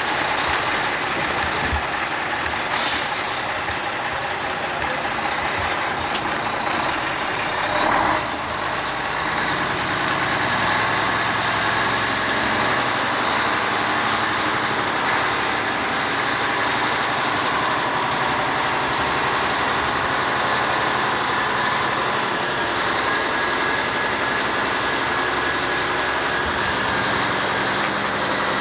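Heavy diesel tractor-trailer running as it is manoeuvred slowly, its engine a steady low hum. A short hiss of air from the air brakes comes about three seconds in, and a louder burst of noise about eight seconds in.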